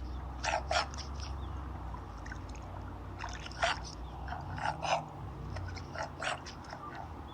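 A bird giving short, harsh calls, often in pairs, every second or two, over a steady low background hum.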